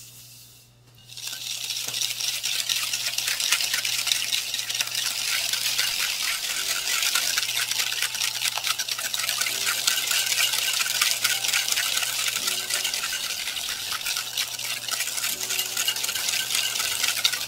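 Wire balloon whisk beating softened butter and granulated sugar in a glass bowl: fast, steady scraping and clicking of the wires against the glass, starting about a second in. This is creaming the butter and sugar until fluffy and pale.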